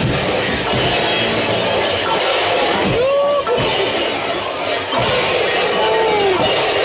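Dense, continuous jingling of many fools' bells (Narrenschellen) worn by costumed carnival fools as they move along, with two short gliding calls rising over it.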